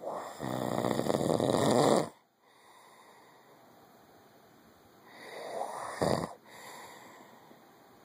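A man snoring heavily in his sleep. There is one long, loud, raspy snore of about two seconds, then a quiet pause. A second snore builds about five seconds in, with a brief sharp catch at its peak.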